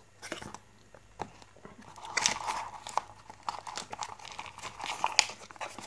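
Hands handling a small cardboard box: scattered light taps and clicks with brief rustling and scraping of the cardboard, loudest about two seconds in.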